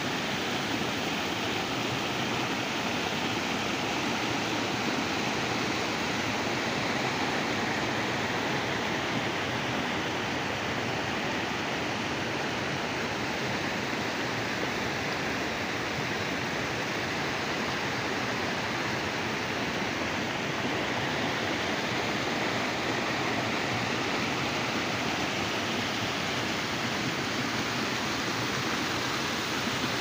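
Rocky mountain stream pouring over boulders in small cascades: a steady, unbroken rush of water.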